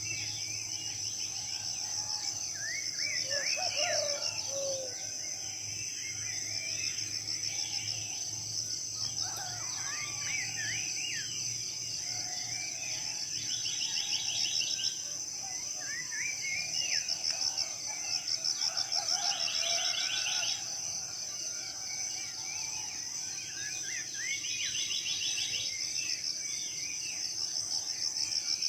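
Tropical forest dawn chorus: insects keep up a steady, high, pulsing drone while birds call in bursts of quick chirps and whistles every few seconds. A short rattling trill repeats three times, about five to six seconds apart.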